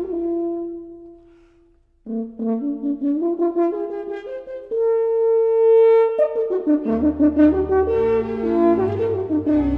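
Instrumental background music: a melody dies away to a brief pause about two seconds in, then resumes with a long held note midway and a low bass part coming in near the end.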